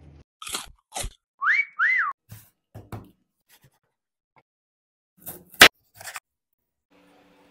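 Sharp clicks and taps of a kitchen knife cutting a burger bun and slicing a tomato on a wooden chopping board, the loudest click a little past halfway. Near the start come two quick whistle-like tones that rise and fall.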